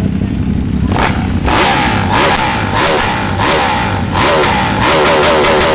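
Sport motorcycle accelerating hard through the gears, its exhaust note climbing and dropping back at each shift, several times in quick succession.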